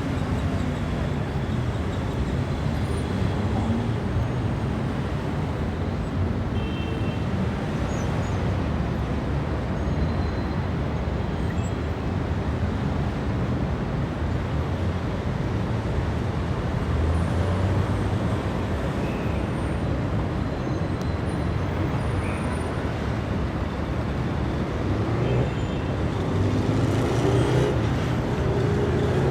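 Dense city traffic: a steady wash of car and bus engines and tyres, with one vehicle's engine audibly rising in pitch as it accelerates a few seconds before the end.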